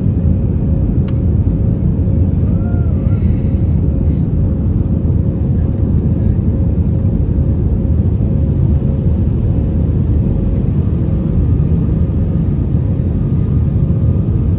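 Airbus A319 passenger cabin noise: a loud, steady low rumble of the engines and airflow, with a faint steady hum above it.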